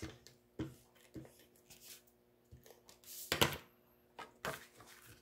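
Paper and cardstock being handled on a tabletop: a few short rustles and light taps, the loudest about three and a half seconds in.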